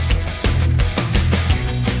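Rock music with a steady drum beat, electric guitar and bass.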